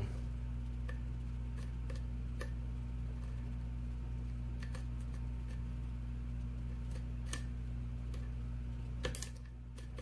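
Scattered light metallic clicks and ticks of a hook pick and tension wrench working the pins inside a brass Yale pin-tumbler lock cylinder during single-pin picking, with a small cluster of clicks about nine seconds in. A steady low hum runs underneath.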